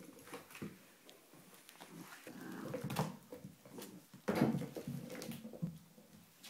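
A dog playing with a chew toy on a wooden floor: the toy knocks and skids on the boards and claws click, and the dog makes two spells of low grumbling, the louder one a little over four seconds in.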